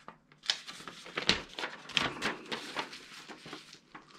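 Paper rustling and crinkling as an instruction manual is unfolded and handled: a quick run of crackles, with sharper ones about a second and two seconds in, dying away near the end.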